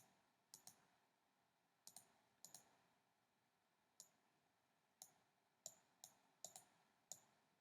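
Faint computer mouse clicks, about a dozen, single and in quick pairs at an irregular pace, as nodes are dragged and resized in the software.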